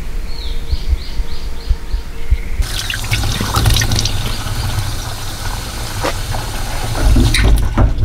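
Water running from a tap into an outdoor sink basin, splashing steadily, starting about two and a half seconds in. Before it, a low rumble with a quick run of high chirps.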